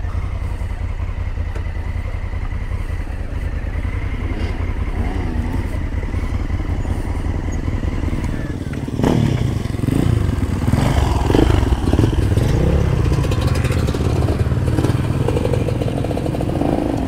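Motorcycle engine running at low speed while the bike is turned around, with a steady fast pulsing beat; about halfway in it gets louder, with clatter over the engine.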